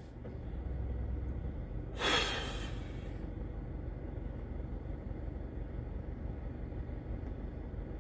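Steady low rumble inside a car, with one long breathy sigh about two seconds in.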